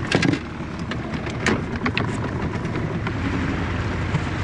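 Small boat's outboard motor running steadily, with a few short sharp knocks in the first two seconds.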